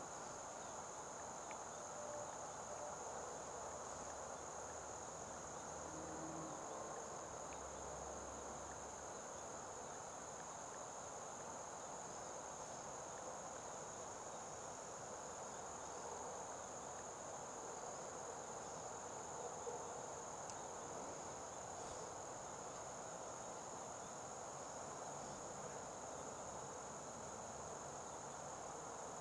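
Insects trilling in a faint, steady, unbroken high-pitched drone.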